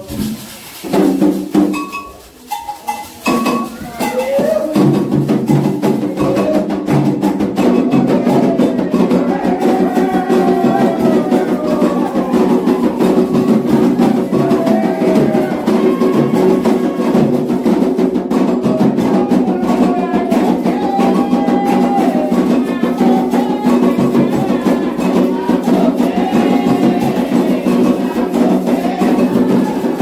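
Candomblé ritual music: people singing a chant to the orixás over rhythmic hand-drum percussion, the full steady groove settling in about five seconds in.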